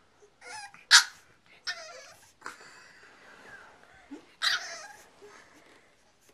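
French Bulldog–Boston Terrier mix puppy whining and giving short yips, several cries in a row, the sharpest about a second in and another strong one a little past the middle.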